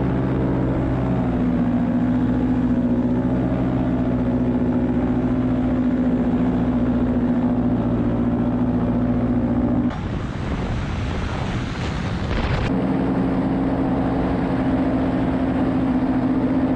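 Paramotor's two-stroke engine and propeller running at a steady, even drone in flight. About ten seconds in, the drone gives way to a rushing noise for a couple of seconds, then comes back unchanged.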